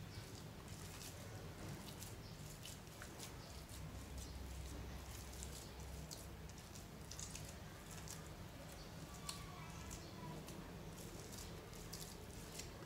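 Fluffy slime squeezed and kneaded by hand, giving irregular soft squishes and many small crackling pops, over a steady low hum.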